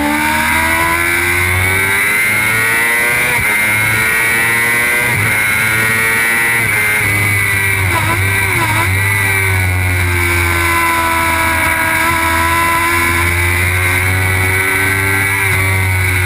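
Suzuki GSX-R sportbike's inline-four engine at high revs, heard from an onboard camera, rising in pitch as it accelerates out of a corner. About eight seconds in the pitch dips twice in quick succession, then it runs on high down the straight.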